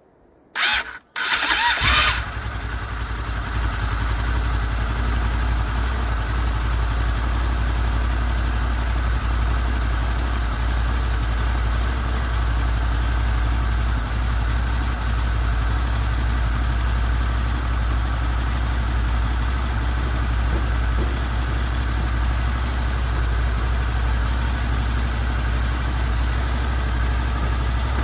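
Honda VFR800 VTEC's V4 engine started for the first time after a timing chain replacement: a short burst of cranking, then it catches about a second in, is loudest for a moment and settles into a steady idle.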